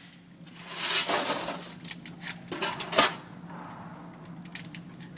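Metallic clicks and clinks from a Serbu Super Shorty pump shotgun being handled, with a louder rush of noise about a second in and a sharp click near three seconds.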